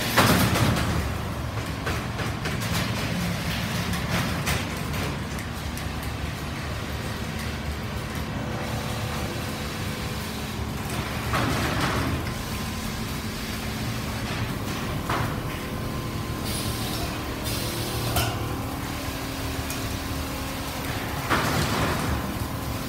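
Quilting machines running on a factory floor: a steady mechanical drone, with several short hisses standing out now and then.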